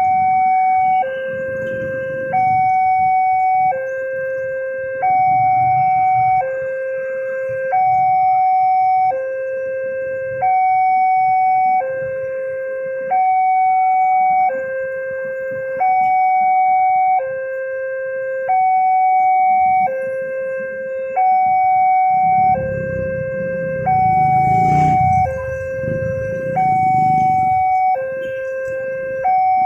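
Railroad level-crossing warning alarm: an electronic signal alternating evenly between a higher and a lower tone, each held about a second, warning that a train is approaching. A low rumble swells over the alarm about 23 seconds in and fades a few seconds later.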